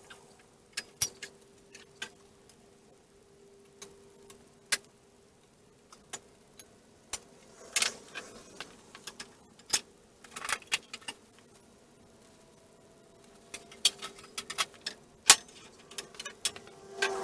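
Sharp metallic clicks and clinks at irregular intervals, tools and steel plow parts being handled during assembly, over a faint steady hum.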